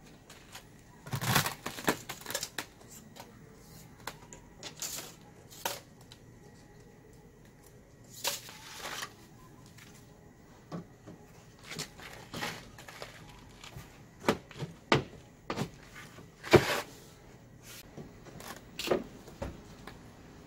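Cement-siding trim strips handled and set against a window frame: scattered sharp clicks and knocks with a few brief scrapes, irregular rather than rhythmic.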